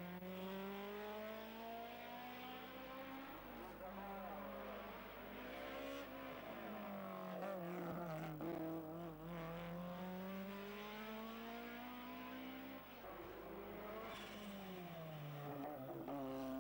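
Race car engines at full throttle on a hillclimb. The engine note rises steadily and falls back several times as the cars shift gear and brake for corners.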